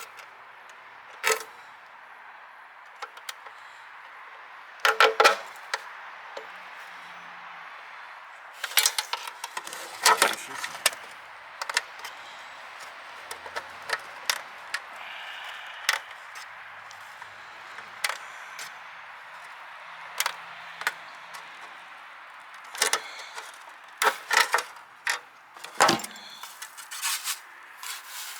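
Scattered clicks, taps and clatter of hand work with tools and parts, irregular and unhurried, over a steady hiss.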